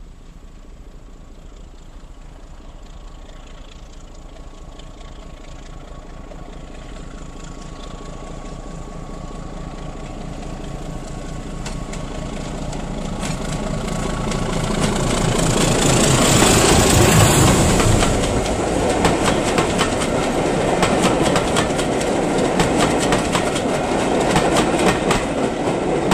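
BR Class 27 diesel locomotive's Sulzer six-cylinder engine growing steadily louder as it approaches under power, passing close about two thirds of the way in. It is followed by the coaches running past, their wheels clattering rhythmically over the rail joints.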